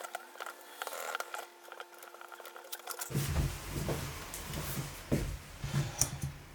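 Light clicks, taps and scraping of small tools and parts being handled during laptop repair work. The sound changes abruptly about three seconds in, when a low handling rumble joins the clicks.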